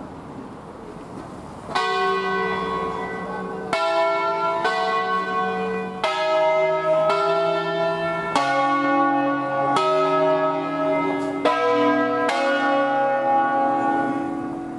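A five-bell ring of bronze church bells cast by the Barigozzi brothers of Milan in 1937, tuned in B, swung full circle by rope in the Ambrosian system. The bells strike one after another at differing pitches, about nine strokes spaced roughly a second or so apart, starting about two seconds in. The ringing dies away near the end.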